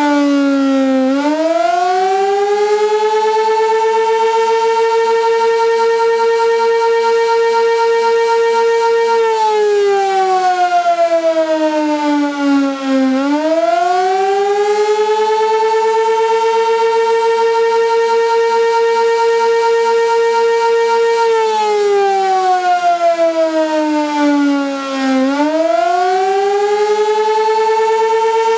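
Sentry 16V2T dual-tone electromechanical outdoor warning siren sounding a wail. The pitch rises, holds steady for about six to eight seconds, then falls, in a cycle of roughly 12 seconds that repeats through the whole stretch.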